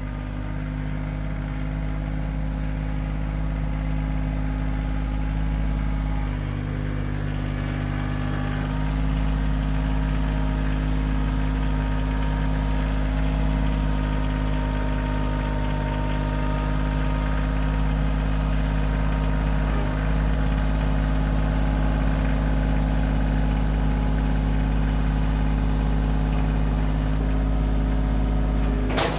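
Kioti CK2610 compact tractor's diesel engine running steadily. Its note drops a little about six seconds in and picks back up about nine seconds in.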